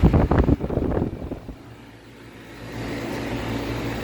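Goodman GSC13 air conditioner condenser running with a steady low hum, its compressor freshly started for the first time in the season. In the first second a loud burst of knocks and rustling covers it. The sound then drops away briefly before the hum comes back.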